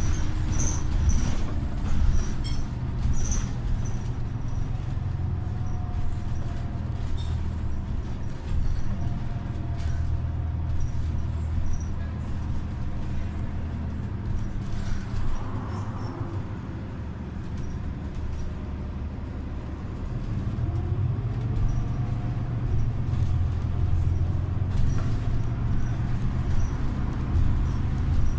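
Cabin sound of a New Flyer XDE60 articulated diesel-electric hybrid bus under way: the Cummins ISL9 diesel's steady low hum, with rattles and clicks from the interior fittings. The hum eases for a few seconds past the middle, then picks up again with a faint rising whine.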